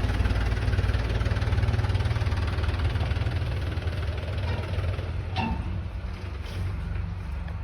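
An engine or motor running steadily with a low throb, easing somewhat after about five seconds.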